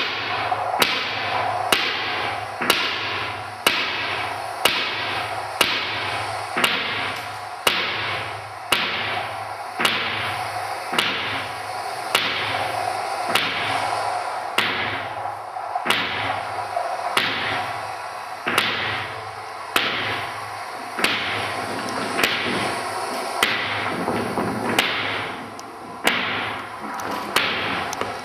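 Sharp percussive strikes repeating evenly about once a second, each with a short ringing decay, over a steady low hum, as live performance music.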